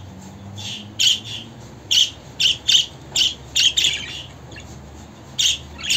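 Budgerigar chirping: a string of short, sharp chirps in quick groups, then a pause of about a second and a half before two more near the end.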